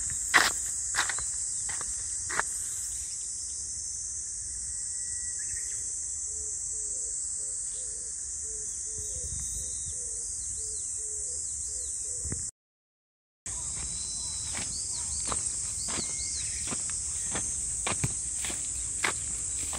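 Steady, high-pitched chorus of summer insects, with the scattered crunching footsteps of someone walking through the field near the start and again in the last part. The sound cuts out completely for about a second just past the middle.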